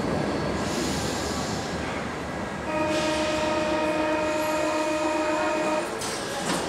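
Paris Métro door-closing warning buzzer: one steady buzzing tone lasting about three seconds, over the running noise of the standing train, signalling that the doors are about to close. A knock follows near the end as the doors shut.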